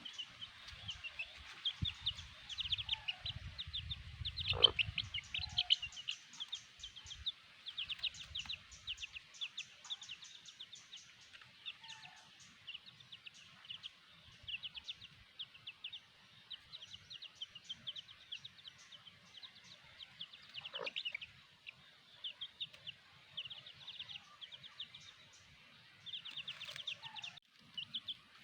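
Domestic chicks peeping almost without pause, a stream of short high cheeps, several a second.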